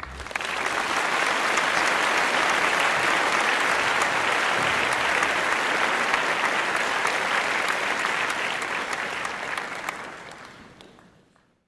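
Theatre audience applauding, the clapping swelling in as the music stops and fading out near the end.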